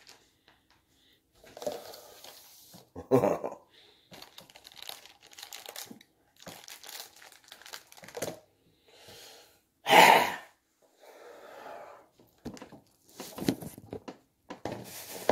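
Plastic food packaging crinkling and rustling in irregular bursts as it is handled and pulled open, with the loudest crackle about ten seconds in.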